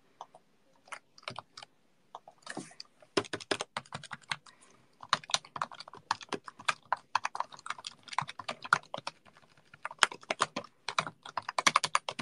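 Typing on a computer keyboard: an irregular run of key clicks, sparse at first and coming thick and fast from about three seconds in.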